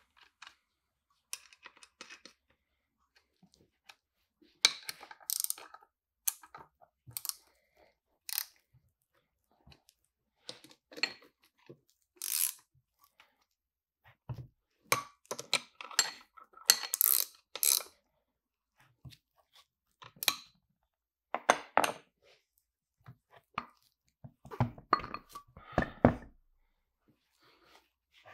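Steel nuts and small metal parts clicking and clinking against the metal housing of a Bridgeport milling head as it is reassembled by hand, in scattered clatters with short pauses. A heavier knocking clatter comes about three-quarters of the way through.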